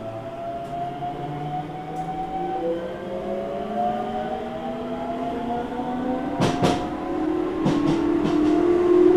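Hokuso 9100-series electric train accelerating: its inverter-driven traction motors give several tones that climb steadily in pitch together as it gathers speed. Around six and a half and eight seconds in come a few sharp clacks of wheels over rail joints.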